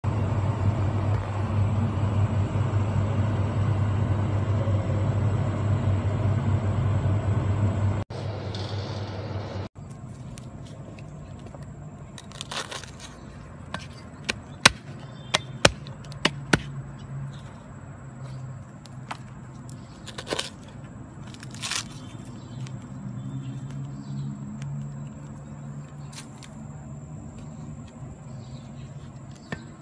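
A steady low hum for the first eight seconds, then, after a sudden break, scattered sharp knocks of a cleaver chopping on a wooden cutting board over a fainter low drone.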